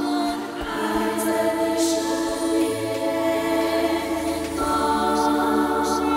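Closing theme song: a sung ballad with orchestral accompaniment, the voice carrying long held notes over sustained harmonies.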